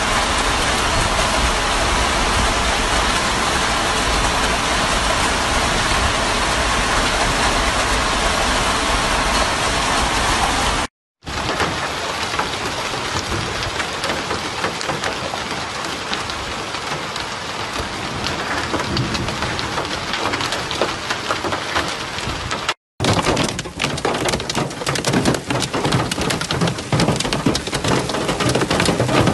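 Heavy rain pouring down with a dense, steady hiss, in three stretches cut together with two brief dropouts. In the last stretch, heard from inside a car, the rain comes as a rapid, uneven patter of sharp hits.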